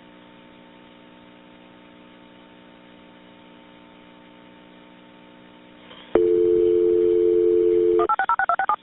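Faint steady hum of an open telephone line, then about six seconds in a loud steady telephone dial tone comes on, followed near the end by a quick run of touch-tone dialing beeps.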